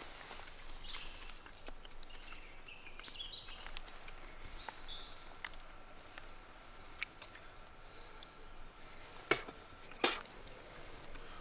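Quiet, wet mouth sounds and small clicks as chewed bluebell-bulb pulp is spat onto a wooden arrow shaft as glue, with faint birdsong behind. Two short, louder sharp sounds come near the end.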